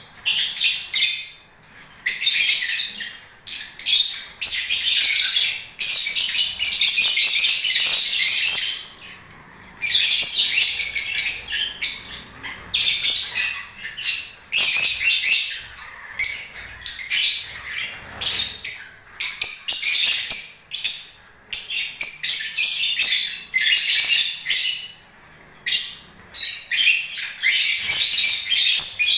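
Lovebirds chattering: shrill, high-pitched chirps and calls in bursts of one to several seconds, with short pauses between.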